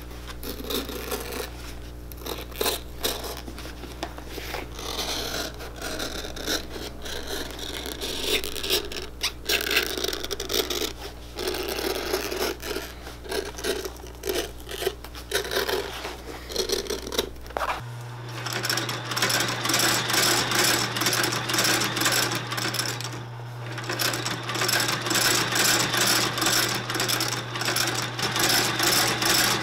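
A knife slicing and scraping through the stitching and layers of a leather boot sole as the old sole is cut away, in uneven strokes over a low steady hum. About two-thirds of the way through, the hum changes suddenly and a machine runs with a fast, even clatter.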